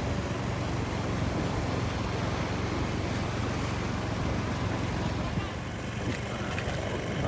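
A steady engine running, with rushing wind noise on the microphone.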